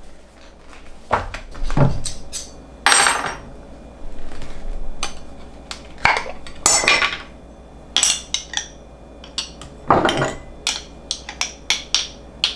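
A metal spoon and glass jars being handled as honey is spooned out: scattered clinks and knocks, with a few longer scraping sounds and a quick run of small clicks near the end.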